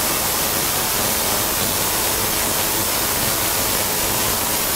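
Tesla coil running, its sparks arcing into a chainmail glove that holds gas-filled tubes: a steady, even hiss of electrical discharge.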